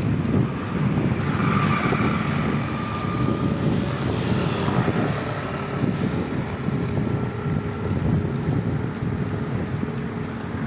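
Road traffic passing: a steady, deep rumble of vehicle engines and tyres, with a faint high tone about a second and a half in.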